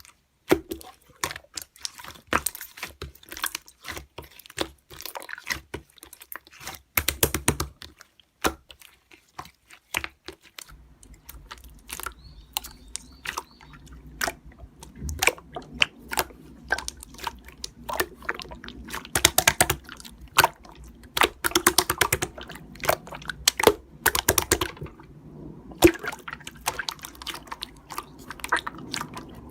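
Slime being squeezed and poked by hand, a dense run of sticky clicks and small wet pops.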